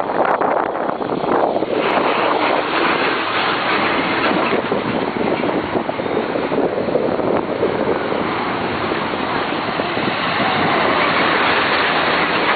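Road traffic passing close by: cars, vans, a bus and box trucks, their engines and tyres making a steady, loud noise. It grows louder near the end as a box truck passes right beside.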